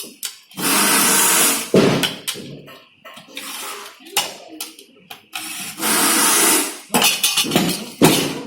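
Two loud hissing bursts of about a second each from air-powered assembly tools, with metal heater parts clinking and knocking in between.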